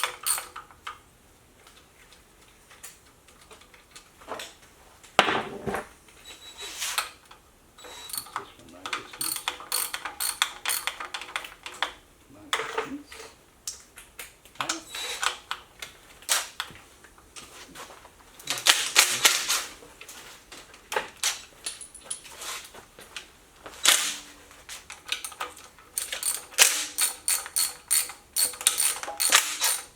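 Runs of rapid clicking and rattling from wrenches working the intake manifold bolts off a Ford 302 V8, with separate clinks and knocks of metal tools and parts.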